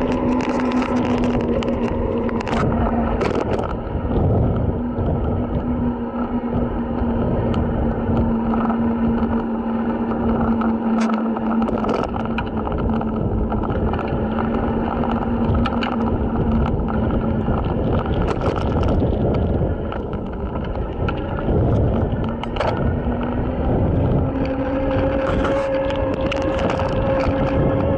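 Electric bike under way on pavement: a steady motor whine over wind and tyre rumble, with short rattles from the loosely held handlebar camera. The whine fades out about two-thirds of the way through, then comes back and rises in pitch near the end.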